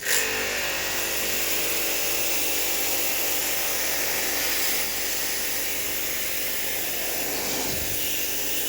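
Small electric pressure washer starting abruptly and running steadily, spraying water in a continuous hiss, as used to jet-clean a split air conditioner.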